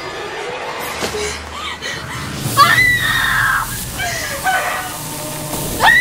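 High-pitched screaming: a long scream about two and a half seconds in, a shorter cry a second later, and another loud scream starting near the end.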